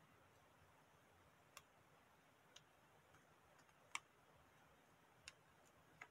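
Near silence broken by five short, faint clicks of small origami paper being folded and pressed into creases by hand, the loudest about four seconds in.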